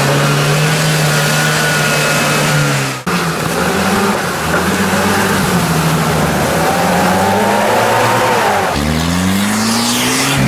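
UAZ-469 off-road vehicle engines revving under load through mud and water, the pitch rising and falling with the throttle. The sound cuts abruptly about three seconds in and again near the end as the clips change.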